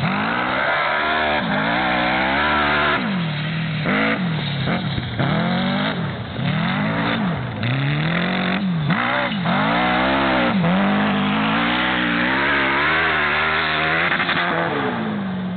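Engine of a single-axle tractor racing machine revving up and dropping back over and over, its pitch rising and falling every second or two as it is driven hard around the course. It fades near the end as it moves away.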